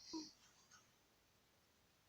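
A sleeping man's breath: a short, faint airy exhale with a brief wheezy tone right at the start, then near silence in the pause between snores.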